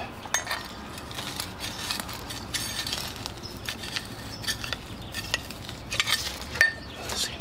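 Thin tool scraping and clicking against the inside of a small ceramic pot, working loose a root-bound plant's soil ball, with a few sharper knocks about six seconds in.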